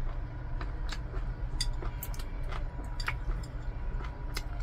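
Metal chopsticks clicking against stainless-steel bowls and a food tray, several sharp separate ticks, over a steady low hum.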